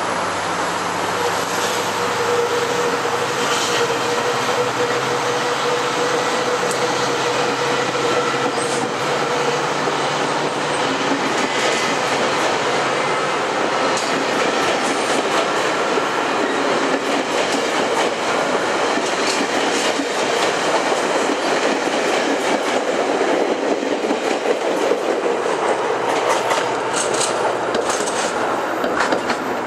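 GO Transit Bombardier Bi-Level commuter coaches rolling past close by: a steady rumble of steel wheels on rail, with clicking as the wheels cross rail joints. A faint steady whine runs through the first half. The clicks come thicker in the last few seconds as the cab car goes by.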